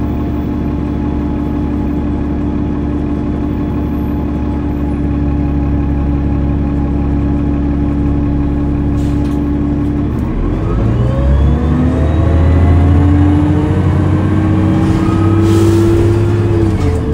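Cummins ISL 8.9-litre inline-six diesel of a 2005 New Flyer D40LF transit bus running at a steady note. About ten seconds in, the engine note starts climbing as the bus accelerates and rises for about six seconds, then drops suddenly near the end as the Voith DIWA automatic transmission shifts up.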